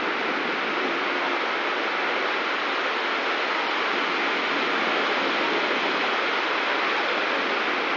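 Heavy storm rain pouring down steadily, a dense even hiss.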